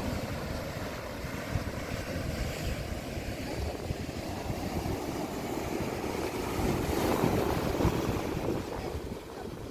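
Surf breaking and washing up a sandy beach, with wind rumbling on the microphone. The surf swells louder about seven seconds in.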